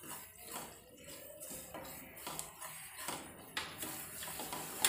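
A spatula stirring and scraping ghee-roasted semolina around a steel kadhai: a faint, gritty scraping that repeats with each stroke, with a sharper knock near the end.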